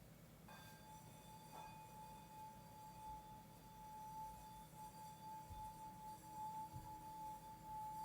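Faint singing bowl struck about half a second in, with a lighter second stroke about a second later, then ringing on in one steady sustained tone.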